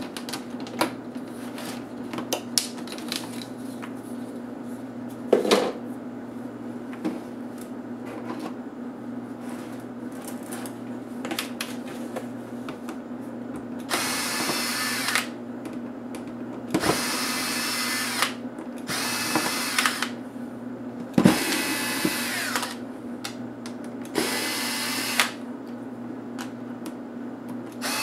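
Cordless power screwdriver driving out the screws of a laptop's LCD panel and hinge brackets in five short whirring bursts of about a second each, starting about halfway through. Before that, scattered clicks and snaps of the plastic screen bezel being worked loose by hand.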